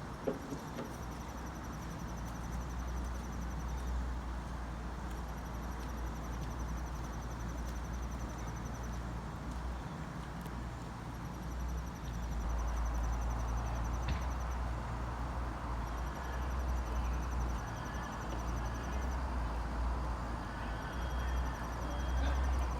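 Outdoor background: a steady low rumble, louder from about halfway through, with high, rapidly pulsing trills that come and go in stretches of a few seconds.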